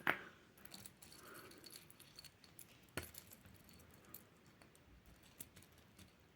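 Small metallic clicks and clinks of a stainless steel watch bracelet and its removed links being handled, with a sharper click at the start and another about three seconds in.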